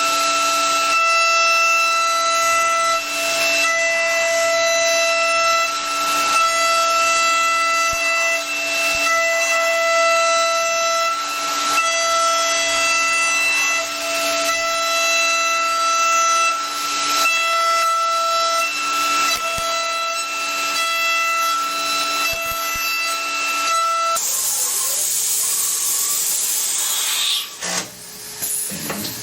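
CNC machine running a cut: a steady whine from the spindle and cutter with a hiss beneath it. The whine stops suddenly about four-fifths of the way through, leaving a louder hiss and irregular machining noise.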